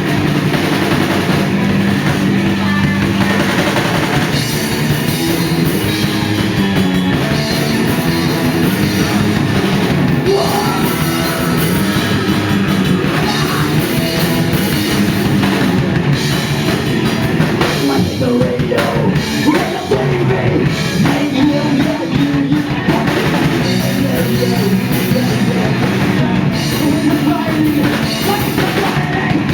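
Punk rock band playing live at full volume, with the drum kit driving a steady beat under the guitars. The song runs on with no break.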